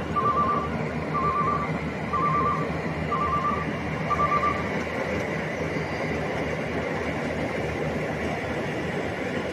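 Rice combine harvester's engine and threshing machinery running steadily, with an electronic warning beeper sounding in short rapid groups about once a second, stopping a little under five seconds in.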